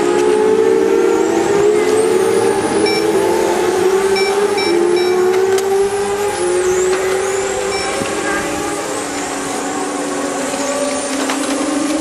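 Several electric radio-control racing cars whining on track, the pitch of their motors and gears rising and falling as they accelerate and brake through the corners. Short electronic beeps sound several times over it.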